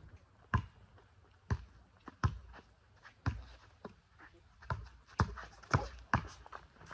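Basketball bouncing on an outdoor court surface: single dribbles roughly a second apart, quickening to about two bounces a second in the last two seconds as the player attacks off the dribble.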